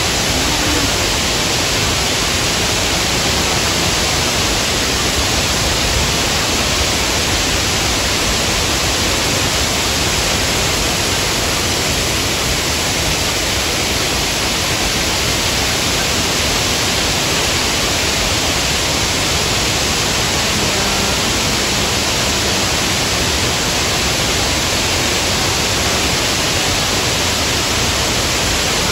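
Waterfall: a loud, steady, even rush of falling water that does not change.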